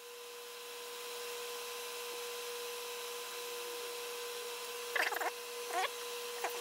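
Fan running with a steady, even hum. Two short squeaky chirps come about five and six seconds in.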